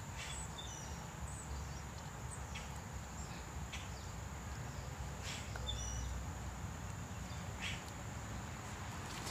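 Outdoor ambience: a steady high insect trill with scattered short bird chirps over a low background rumble.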